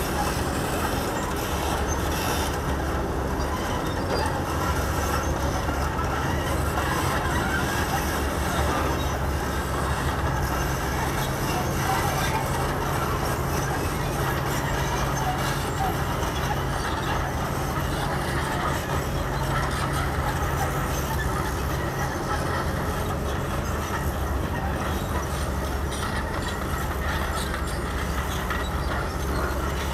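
Diesel engines of crawler excavators working at a dig site, a continuous low drone as the machines dig soil and load dump trucks.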